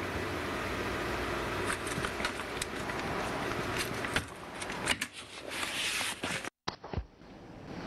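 Noise-based experimental track: a dense hiss with scattered clicks and crackles, cutting out suddenly to dead silence about six and a half seconds in, then coming back quieter with a few more clicks.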